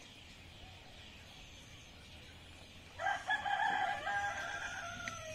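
A rooster crows once, starting about three seconds in: a loud, drawn-out call that holds steady and then falls in pitch at the end.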